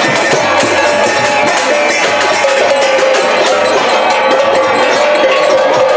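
Devotional kirtan music: a steady beat of bright metallic strikes from small hand cymbals (kartals) over a sustained melody.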